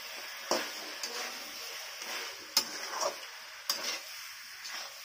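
Metal spatula stirring chicken pieces and dry spice powder in a metal kadai, scraping and knocking sharply against the pan several times over a steady sizzle.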